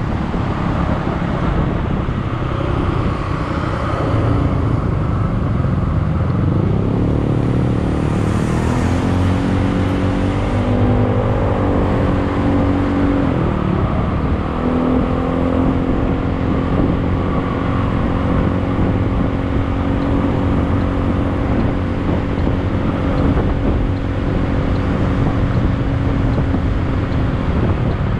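A vehicle engine running under heavy rumble and wind noise. Its pitch climbs about six seconds in, dips briefly about halfway, then holds steady.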